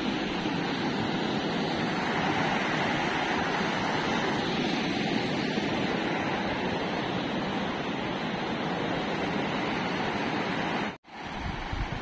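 Steady rushing of a fast, rocky river's rapids, cutting off suddenly near the end.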